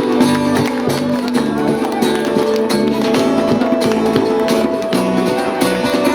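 A live band playing an instrumental vamp, with steady hand percussion, bass guitar and sustained melodic lines.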